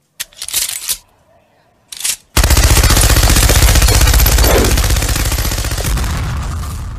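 Machine-gun fire sound effect: a long, continuous burst of rapid shots starting about two and a half seconds in and slowly fading near the end, after two short sharp noises.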